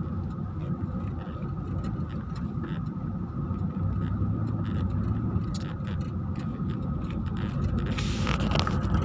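Vehicle driving slowly over a rough seashore trail, heard from inside the cabin: a steady low rumble of engine and tyres, with scattered short knocks and creaks from the body and suspension.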